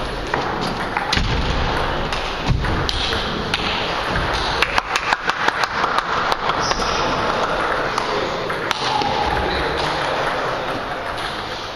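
Table tennis ball clicking sharply off the table and bats, a quick run of clicks about four to six seconds in, over steady hall noise. A few low thuds come near the start.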